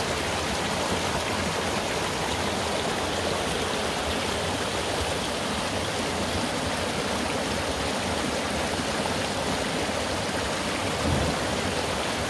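Mountain valley stream flowing, a steady rush of water, with a soft low bump near the end.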